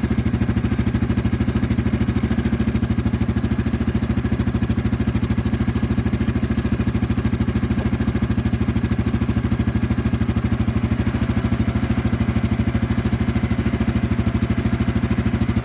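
Can-Am Outlander XMR 850 ATV's V-twin engine idling steadily with a fast, even pulse.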